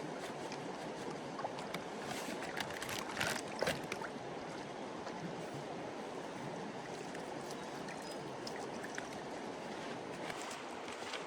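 Steady rush of flowing floodwater, with a few short sharp sounds about three seconds in that are the loudest moment.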